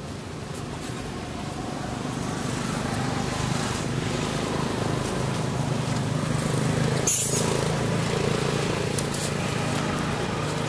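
A motor vehicle's engine running nearby, its low hum swelling over several seconds and then easing off as it passes. There is a single sharp click about seven seconds in.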